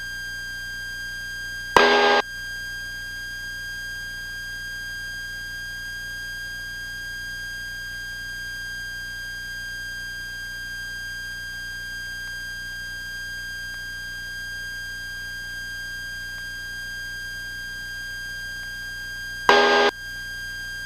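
Steady high-pitched electrical whine with overtones over faint hiss in the Cessna 172's intercom and radio audio feed, with no engine heard. Two short, loud buzzy bursts cut in, one about two seconds in and one near the end.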